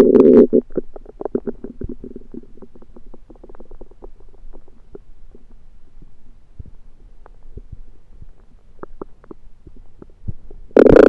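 Stomach gurgling and rumbling picked up close to the belly: a loud gurgle at the start and another near the end, with irregular small pops and crackles between, which the uploader blames on undercooked food.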